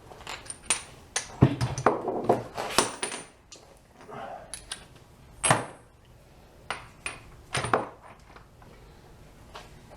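Loose metal engine parts and hand tools clinking and knocking as they are handled and set down, a quick cluster of sharp clanks with brief metallic ringing, then scattered single clinks.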